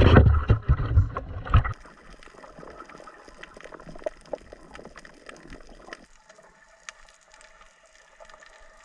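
Sea water sloshing and splashing around the camera at the surface, loud and rumbling for the first couple of seconds, then settling to faint water noise with small scattered clicks.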